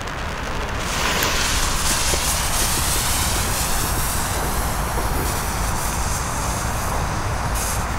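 Burning fuse of a Weco Fantastic 4 single-shot firework tube, a steady hiss that starts about a second in and runs on without a break.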